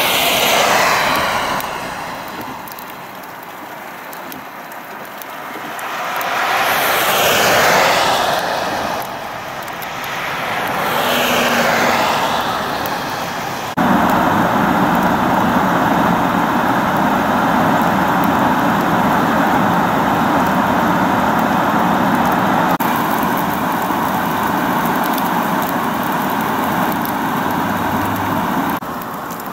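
Cars passing one at a time on a wet road, three passes each rising and falling, with tyre hiss. About halfway through the sound cuts abruptly to an even, steady noise that holds until near the end.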